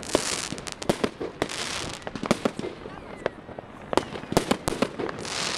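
Fireworks and firecrackers going off all around in a rapid, irregular string of sharp bangs and pops. Three spells of hissing crackle come through: one at the start, one about a second and a half in, and one near the end.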